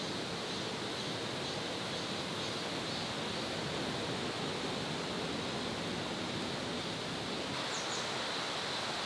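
Steady outdoor background hiss that stays even throughout, with no distinct events.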